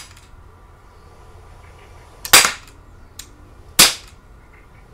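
Gas-powered air pistol fired twice: two sharp cracks about a second and a half apart, with a couple of faint ticks between them.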